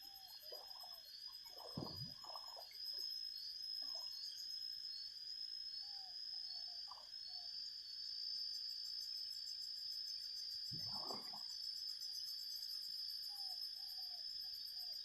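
Insects calling in a steady high-pitched chorus, one of them in quick repeated chirps. A few short low calls come through, with two louder low sounds about two seconds and eleven seconds in.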